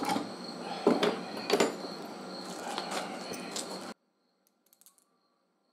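Sharp metallic clicks and knocks as a steel rod is worked through a welded steel bending block in a vise, wrapping coated fencing wire into a clip, over steady background noise. The sound cuts off abruptly about four seconds in, leaving only a few faint clicks.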